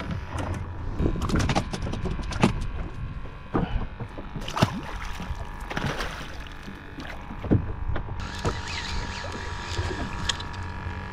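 Sounds aboard a fishing boat on the water: a steady low rumble with scattered knocks and clicks, and a steady tone that grows stronger near the end.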